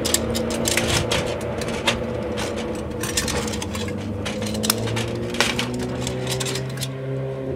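Irregular clicks and knocks of a downlight housing and its metal clips being handled and pushed up into a soffit opening for a test fit, over a steady low hum.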